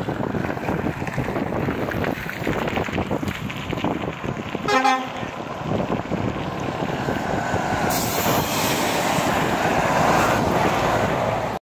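Roadside traffic and wind noise with a truck drawing near. About five seconds in, a single short truck horn toot. From about eight seconds the truck's engine and tyre noise grows louder as it passes close.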